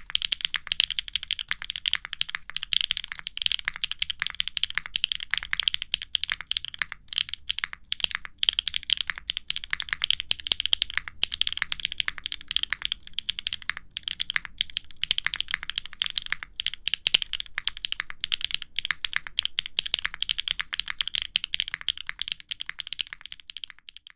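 Continuous fast typing on a QwertyKeys neo65 aluminum mechanical keyboard with a carbon fiber plate and Akko x HMX Cilantro factory-lubed tactile switches, with no dampening foam: a dense run of crisp keystroke clicks with a few short pauses.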